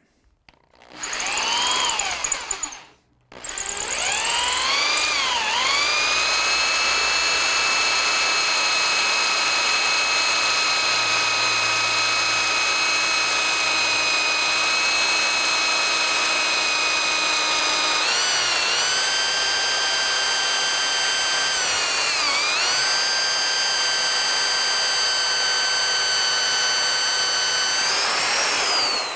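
Corded electric drill boring down into a wooden cane shaft. A short burst of the motor comes first, then a long steady whine whose pitch dips briefly a few times as the bit loads in the wood. The motor winds down near the end.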